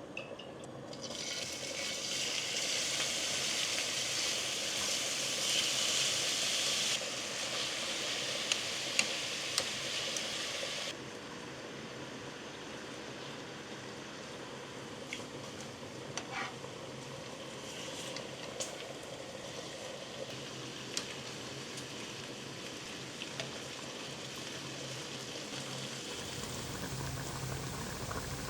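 Tocino (sweet cured pork) sizzling and bubbling in a pan as it cooks, with a few light clicks. The sizzle is louder for roughly the first ten seconds, then settles to a lower, steady hiss.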